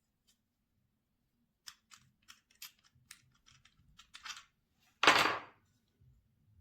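A run of light clicks and taps over about three seconds, then one loud short thump about five seconds in.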